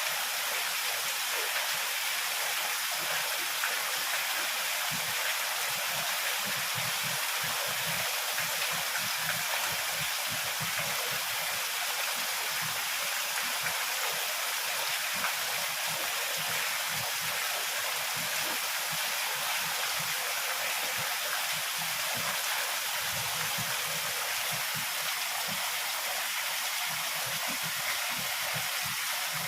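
Heavy rain falling steadily, a dense, even hiss of water with no let-up.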